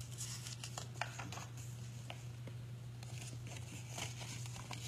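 A paper picture book being handled and its page turned: soft paper rustles and a few light taps and ticks, over a steady low room hum.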